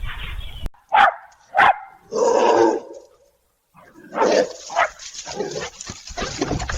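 Dog barking: two short, sharp barks about a second apart, followed by more dog noises across cuts between clips.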